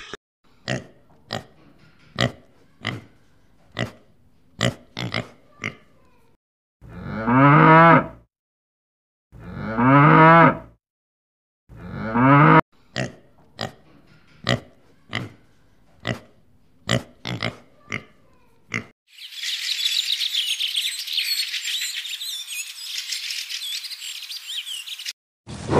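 A cow mooing three times, each call a long low moo of one to two seconds, with many short sharp clicks before and after. Near the end comes a dense high hiss of fountain water splashing, with a gull calling.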